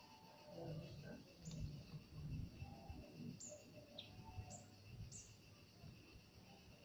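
Faint bird chirps, about five short high notes that each drop quickly in pitch, over a steady high insect drone, with some low rumble in the first few seconds.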